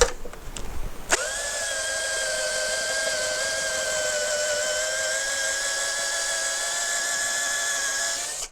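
Electric drill motor running steadily, driving a reverse-threaded screw extractor into a rusted, seized screw. It is a steady whine that starts abruptly about a second in and stops just before the end. The extractor is not biting in to remove the screw.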